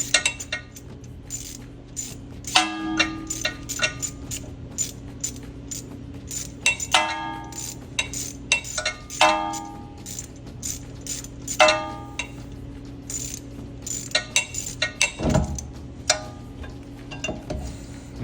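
Hand tools on a rear brake caliper: irregular ratchet clicks and short ringing metal clinks as the two bolts holding the electric parking brake motor are backed out. A steady low hum runs underneath.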